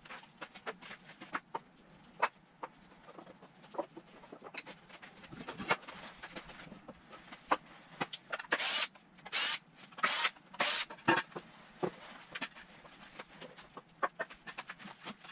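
Lumber and tools being handled on a wooden workbench: scattered knocks and clicks, with four short, loud, hissing bursts about half a second apart a little over halfway through.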